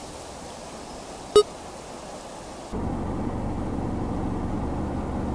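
Car cabin noise while driving: a steady low rumble of engine and road, which gets louder about two and a half seconds in. A single short beep sounds about a second and a half in.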